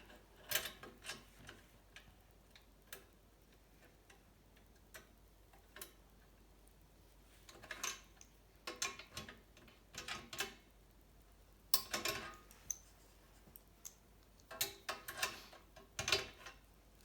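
Metal tools and steel bike-frame parts clicking and clinking in irregular clusters of short, sharp ticks and knocks, separated by quiet gaps.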